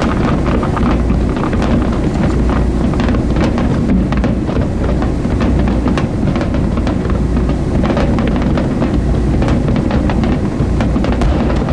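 A boat's engine running steadily under wind buffeting the microphone, with a scatter of faint crackling ticks throughout.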